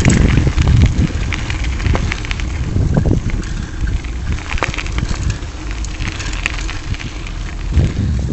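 Bicycle tyres rolling over a gravel trail: a continuous crackling crunch with scattered clicks, under a low rumble of wind buffeting the microphone, which grows louder near the end.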